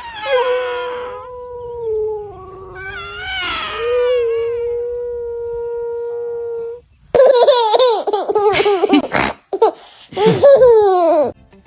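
A long, held, wavering vocal call lasting several seconds, then after a short break a run of loud laughter-like bursts.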